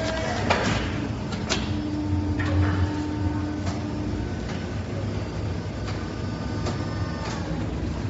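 Shoe-making machinery running: a steady mechanical hum with several held tones, broken by a few sharp clacks.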